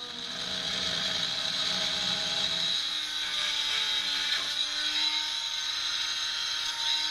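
Oscillating multi-tool with a fibreglass-cutting blade running steadily with a high whine as it cuts away excess fibreglass.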